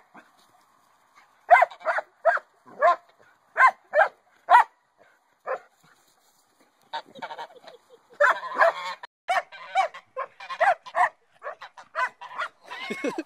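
White domestic goose honking repeatedly in short, loud calls, then faster and in a denser run from about seven seconds in.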